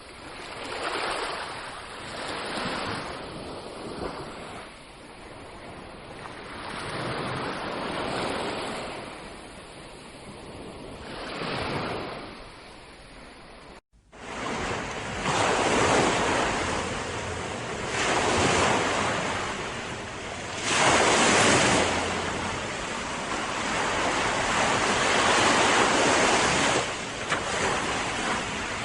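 Sea waves washing onto a shore, the surf swelling and falling away every two to three seconds. About halfway through there is a sudden cut with a split-second dropout, after which the surf is louder and more continuous.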